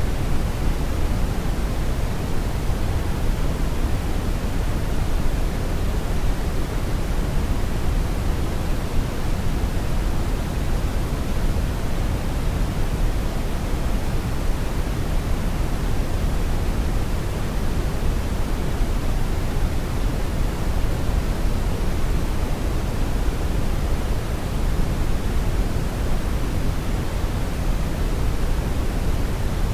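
Brown noise: a steady, even rushing hiss, deep and heavy in the bass and dull in the treble, with no change in level.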